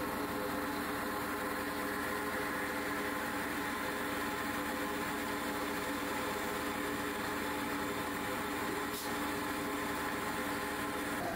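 Steady hum of motor-driven plastic processing machinery running at constant speed, with one faint click near the end.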